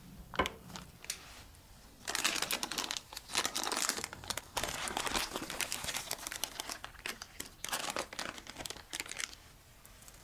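Baking paper crinkling as it is peeled off the side of a baked sponge cake: a few soft clicks at first, then dense crackling rustle from about two seconds in that stops shortly before the end.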